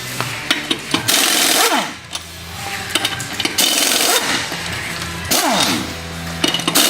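Air impact wrench run in four short bursts on the suspension bolts, its pitch falling away as it spins down after each burst.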